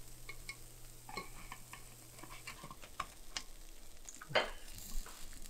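Wooden chopsticks clicking and tapping against a nonstick bungeoppang (fish-shaped bread) pan and the cooking breads, in scattered light ticks with one louder knock about four and a half seconds in. Faint sizzling of the batter cooking in the pan.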